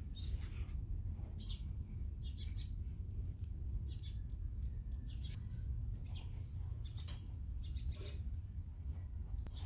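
Small birds chirping in short, high calls several times a second, over a steady low rumble.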